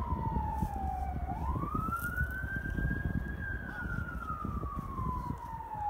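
Emergency vehicle siren sounding a slow wail: its pitch falls, swings back up about a second in, holds high briefly, then falls slowly again.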